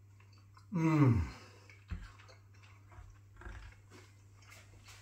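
A man chewing a mouthful of chicken curry: a short, loud "mmm" falling in pitch about a second in, then a sharp click and faint mouth and spoon noises.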